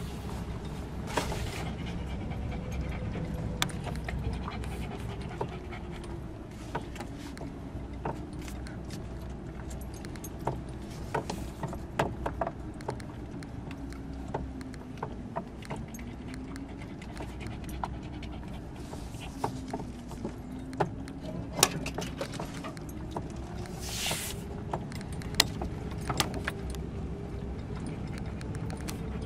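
Vehicle cab on a rough dirt track: the engine note rises and falls slowly over a steady low rumble, with frequent sharp rattles and knocks from the bumps. A brief hiss comes late on.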